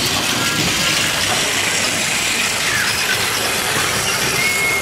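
Several battery-powered Plarail toy trains running at once, a steady whirring rattle of their small motors and gears and plastic wheels on plastic track.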